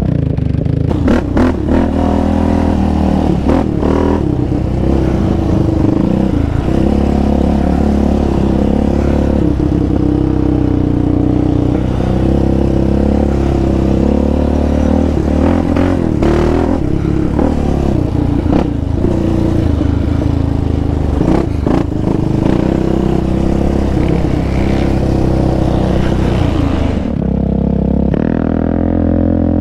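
Yamaha Raptor 700R quad's single-cylinder four-stroke engine running under load on a rough dirt trail, the engine note rising and falling with the throttle, with knocks and rattles from the bumps. It eases off near the end.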